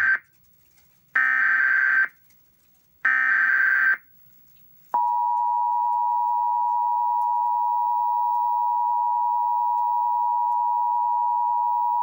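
Emergency Alert System SAME header: raspy bursts of digital data tone about a second long and two seconds apart, the first ending as the second and third follow. About five seconds in, the steady two-tone EAS attention signal begins and holds, marking the start of an emergency alert broadcast.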